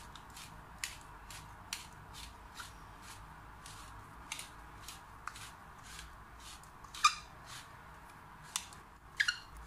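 Hand pepper mill grinding black peppercorns: a run of crisp, crunchy clicks, about two to three a second as the top is twisted, with one louder click about seven seconds in.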